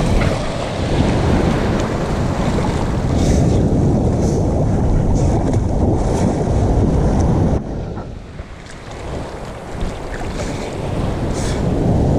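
Ocean surf breaking and water churning around a swimmer, with heavy wind buffeting on the microphone. The noise drops abruptly about seven and a half seconds in, then builds back up near the end.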